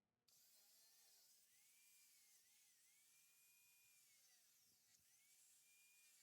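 Near silence: a faint hiss with faint, slowly wavering high tones.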